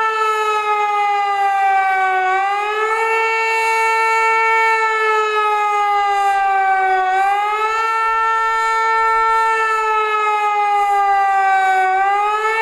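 Hörmann HLS 273 pneumatic high-performance civil defence siren sounding the rising-and-falling warning signal. Its loud wailing tone sinks slowly in pitch, then swoops quickly back up and holds, about every five seconds, three times over.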